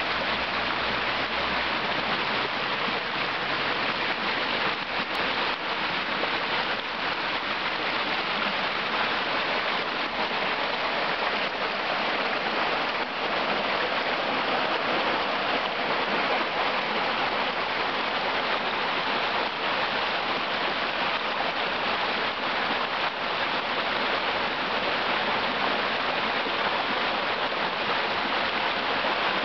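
Muddy floodwater rushing over the ground in a steady, unbroken wash of noise, with rain falling.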